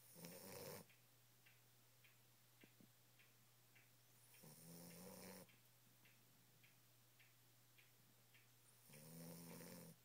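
Nine-week-old Boxer puppy snoring in its sleep: three snores about four and a half seconds apart, each lasting about a second. A faint ticking, about two ticks a second, runs between them.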